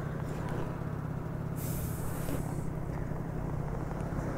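Small 50 cc scooter engine idling steadily while stopped, with a brief high hiss about a second and a half in.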